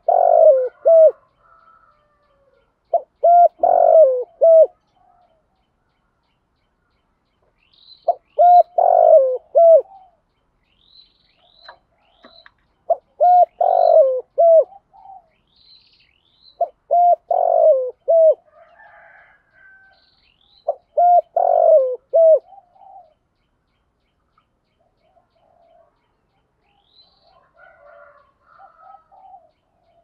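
Spotted dove cooing its song: six phrases of several low coos each, about one every four seconds. Faint chirps of small birds are all that remain in the last several seconds.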